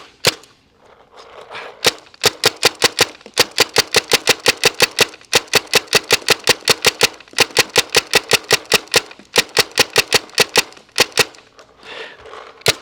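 Tippmann TMC mechanical blowback paintball marker firing rapid shots, about seven a second, in long strings broken by a pause near the start and another near the end.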